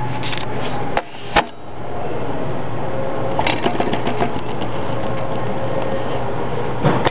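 Camera handled and set down on a wooden tabletop, with two sharp knocks about a second in. A few seconds in, a paper food wrapper rustles and crinkles in short spells. A steady low hum of the room runs underneath.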